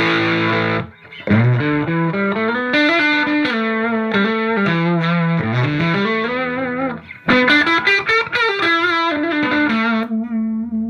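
1987 Gibson Les Paul 1959 Reissue on its Seymour Duncan Pearly Gates bridge pickup, played through a hand-wired Marshall JTM45 Plexi clone head with KT66 valves on its clean setting into a 1x12 cabinet. A chord is struck at the start, then a single-note lead line with string bends and vibrato, another chord about seven seconds in, and it ends on a held note.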